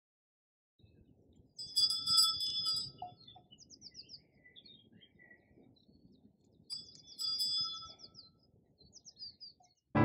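Birds singing and chirping over a faint outdoor background, in two main bouts a few seconds apart with scattered chirps between. Each bout carries a bright, steady, bell-like ringing tone.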